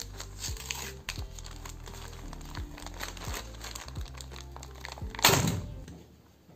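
Plastic courier mailer bag being crinkled and torn open by hand, with one loud rip about five seconds in. Background music with a steady beat plays under it and stops shortly before the end.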